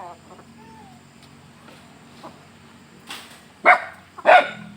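A dog barking: three sharp barks in quick succession about three seconds in, the second and third the loudest. Before them, a hen clucks faintly a few times.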